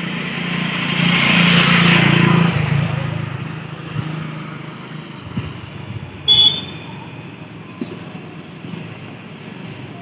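Steady rush of water pouring through the open gates of a river weir. A motor vehicle swells past over the first two or three seconds, and a short, sharp high-pitched toot sounds about six seconds in.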